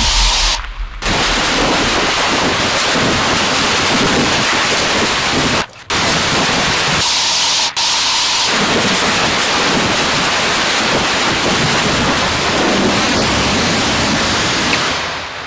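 High-pressure water jet from a 3,600 PSI, 8-gallon-per-minute power washer blasting foam off a truck's body and tyres: a loud, steady hiss and splatter. It cuts out briefly about a second in and again just before six seconds.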